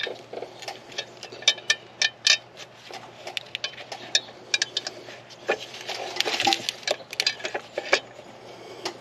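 Irregular metallic clicks and clinks as a steel bracket bolt is worked by hand into the alternator and power steering pump bracket, with a brief scraping rustle about six seconds in.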